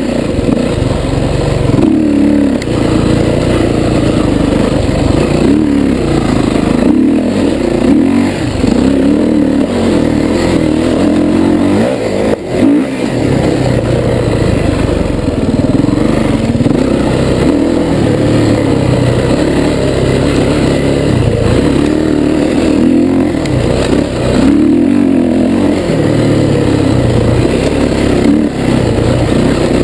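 Off-road dirt bike engine revving up and easing off over and over under hard riding, close to the handlebar-mounted camera. The throttle is briefly shut about twelve seconds in.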